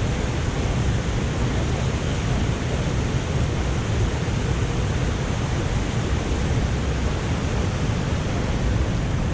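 Waterfall and river rapids rushing: a steady, loud wash of water noise that does not let up.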